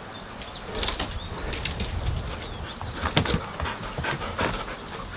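Footsteps and handling noises: scuffs and several sharp knocks, the loudest about a second in and again a little past the three-second mark.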